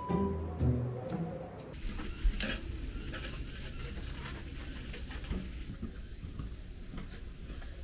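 From about two seconds in, meat sizzling over charcoal on a barbecue grill: a steady hiss with scattered small pops.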